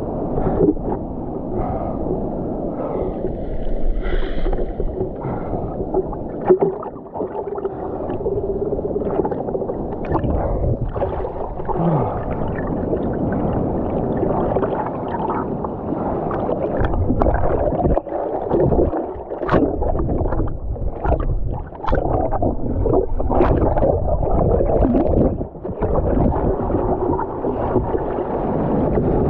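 Sea water sloshing and gurgling around an action camera at the surface, muffled, with many short splashes as swells wash over it.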